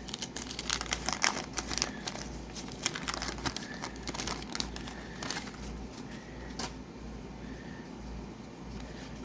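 Wax-paper wrapper of a hockey card pack crinkling as it is torn open. The crackles come thick and fast for the first few seconds, then thin out and die away after about seven seconds.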